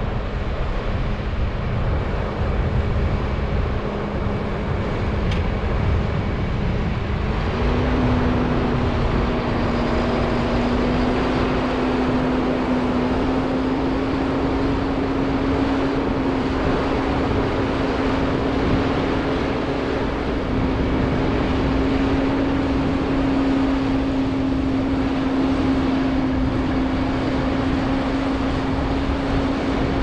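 Large diesel harvest machinery running, either the combine or the tractor with its grain cart. It gives a steady drone over a low rumble, and its pitch steps up a little about seven seconds in, then holds.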